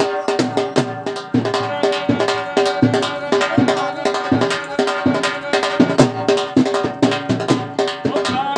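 Music with a fast, busy drum beat over steady held tones.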